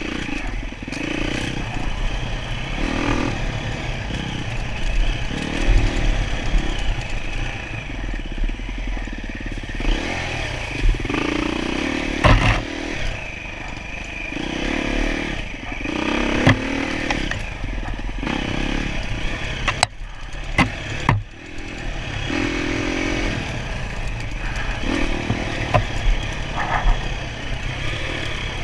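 Enduro dirt bike engine revving on and off the throttle over rough ground, its note rising and falling every second or two, with scattered knocks and clattering.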